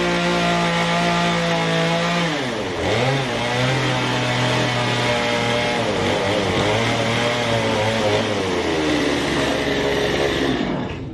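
Gas chainsaw cutting through a log wall: running at high revs, then its pitch drops about two seconds in as the chain bites into the wood, and it labours with a wavering pitch under load. It falls away near the end.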